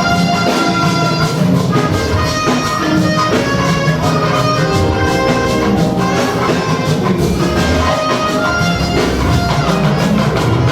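Instrumental band music: a melody of held notes over a steady drum-kit beat, with no singing.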